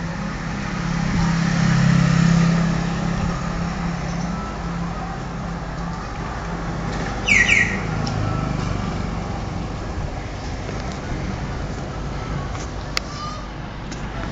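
Passing road traffic: a steady low engine rumble that swells about two seconds in and then eases. About seven seconds in there is a brief high squeal that falls in pitch.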